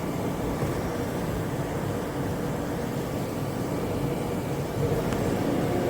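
Steady low hum of machine-shop background noise with faint steady tones, rising slightly in level about five seconds in.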